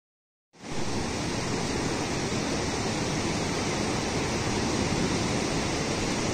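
The Suru River's fast-flowing water rushing steadily in an even, unbroken noise, cutting in abruptly about half a second in after silence.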